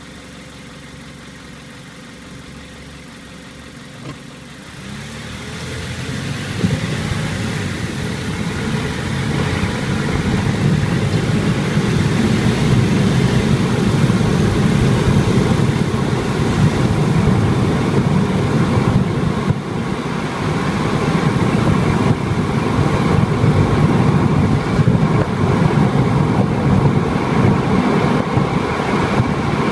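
Car engine idling, a click about four seconds in, then the car pulls away and drives: engine and road noise rise over several seconds and stay loud, with one sharp knock as it gets under way.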